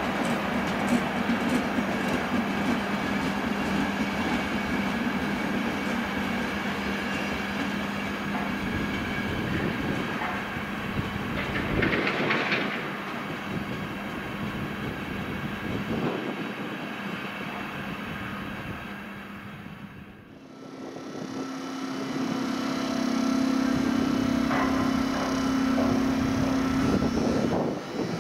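Passenger coaches rolling past on the rails with wheel clatter and a brief high squeal about twelve seconds in. After a short dip about two-thirds through, a Slovak class 362 electric locomotive is moving with a steady hum.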